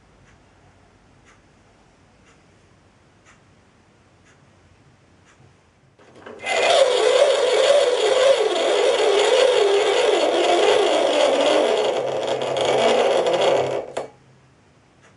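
Myford metal lathe running under power for a screwcutting pass, the leadscrew and gear train driving the saddle as the tool takes another cut in the brass thread. It starts about six seconds in, runs loudly and steadily with a wavering whine for about eight seconds, and stops suddenly; before it there are only a few faint clicks.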